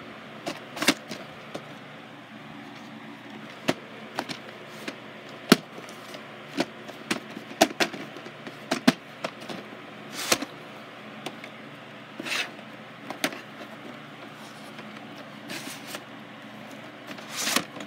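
VHS cassettes and their plastic and cardboard cases being handled: irregular sharp clicks and knocks as tapes are taken out, turned over and set down, over a steady faint background noise.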